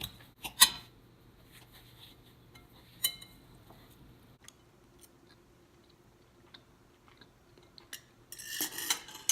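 Cutlery clinking on a plate: a few sharp clinks, the loudest about half a second in and another about three seconds in, with light ticks between and a longer scraping noise near the end.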